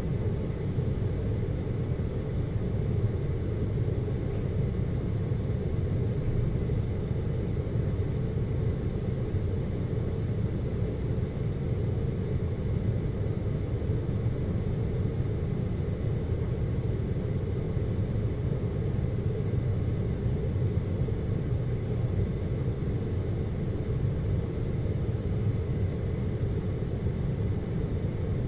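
Steady low rumble of a cable car cabin travelling along its cable, heard from inside the cabin, with a faint thin high whine held throughout.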